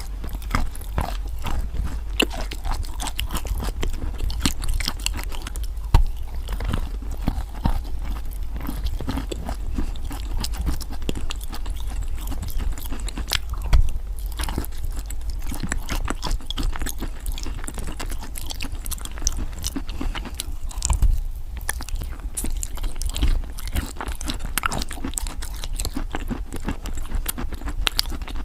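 Wet white chalk being bitten and chewed close to the microphone: continuous crackly crunching, with a few sharper, louder bites.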